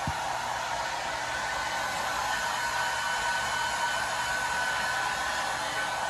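Steady rush of blown air with a faint, even motor whine, as from a small fan or blower; it cuts off suddenly just after the end.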